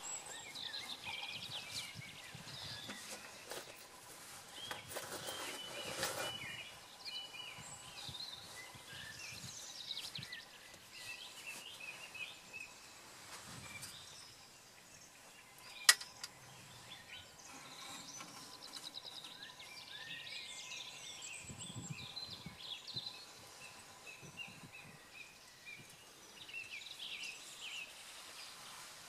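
Outdoor countryside ambience with several songbirds singing and calling over a low background hiss; a single sharp click about halfway through.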